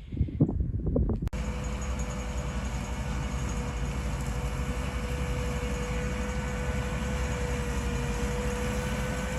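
Self-propelled sugar beet harvester running steadily in the field: a low engine drone under a steady whine. It starts abruptly about a second in.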